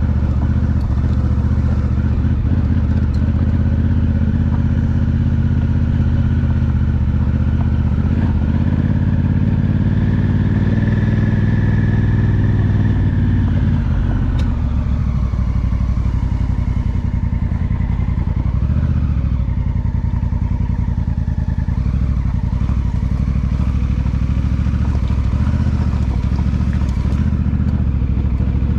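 Honda Africa Twin's 998 cc parallel-twin engine running under way on a rough dirt track. Its pitch wavers and drops somewhat from about halfway through as the speed changes.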